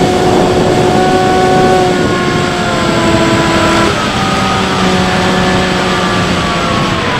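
Bixler 3's electric pusher motor and propeller whining steadily in flight under heavy wind rush on the onboard camera's microphone. The pitch steps down about four seconds in and falls again near the end as the throttle is eased.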